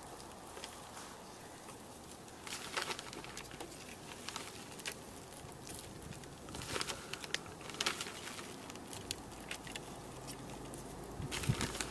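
Hands pressing and crumbling potting soil into the gaps around plants in a ceramic pot: soft, scattered rustles and small clicks, quiet overall.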